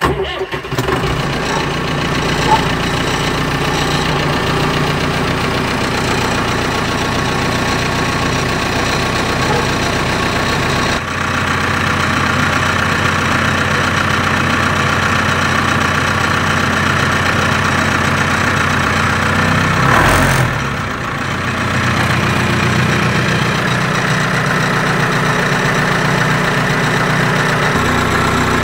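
IMT 577 tractor's diesel engine firing up from cold and settling into a steady idle with a diesel knock. It is briefly louder about twenty seconds in.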